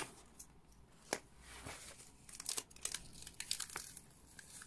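Plastic cover film on a diamond painting canvas rustling and crackling as hands smooth and press the canvas flat, in faint, irregular little clicks, busiest in the second half.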